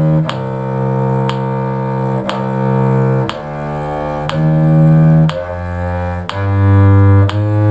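Bowed string instruments, low in the cello's range, playing a C harmonic minor scale-and-arpeggio exercise in slow, even quarter notes, a new note about once a second.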